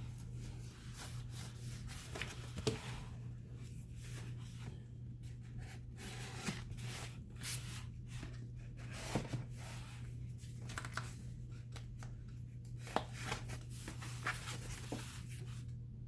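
Hands opening and handling a model's box packaging: irregular rustles, scrapes and light taps, some of it tearing. A steady low hum runs underneath.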